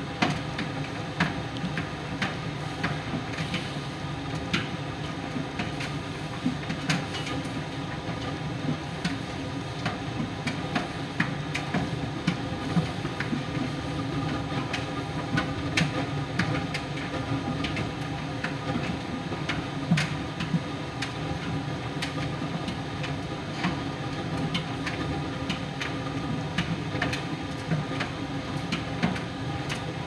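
Miele PT 5136 tumble dryer running in its drying phase: a steady hum from the turning drum and motor, with irregular light clicks and knocks.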